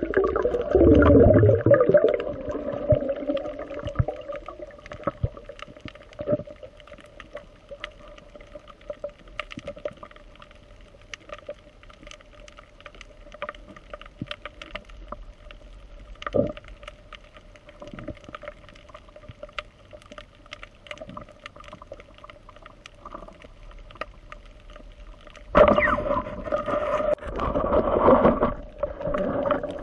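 Underwater sound picked up by a camera in its housing: a loud low rumbling sound that glides in pitch in the first two seconds, then a steady hum with many scattered clicks and crackles. About 25 seconds in, a louder rushing water noise begins as the diver nears the surface.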